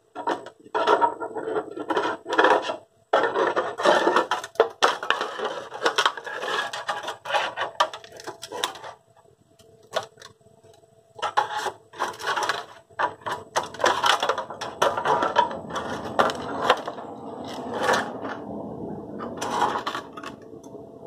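Sheet-steel shell of an old folded-seam muffler being pried and peeled open, in irregular bursts of metal scraping and clanking, with a short lull about halfway through.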